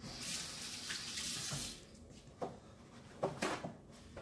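Kitchen faucet running into the sink as hands are rinsed under the stream, shut off after about a second and a half. A few short, sharp sounds follow near the end.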